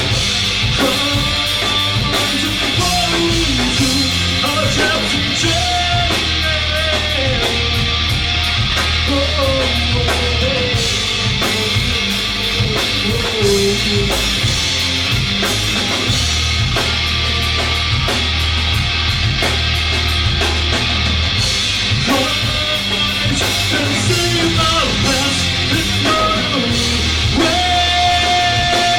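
Live rock band playing loud, with drum kit, bass and distorted guitar, and a wavering lead melody over it for much of the time.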